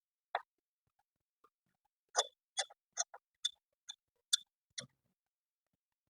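Light, sharp clicks of hard parts being handled during computer disassembly: one click, then a run of about seven, roughly two a second.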